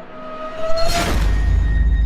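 Outro music sting: a rising tone and a whoosh about a second in, then a loud low rumbling drone with steady high tones.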